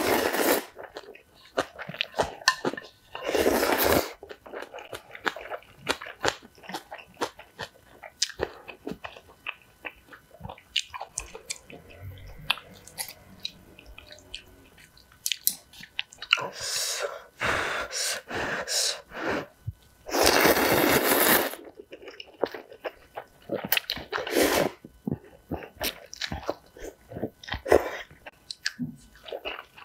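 A person eating ramen noodles in spicy broth close to the microphone, slurping loudly from a spoon several times, with wet chewing and small clicks of chopsticks and spoon in between.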